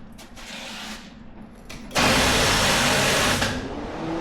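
Starter motor of a 1985 Chevy C10's 454 big-block V8 cranking for about a second and a half without the engine catching. It is still cranking weakly, a sign that the low voltage reaching the starter has not been cured.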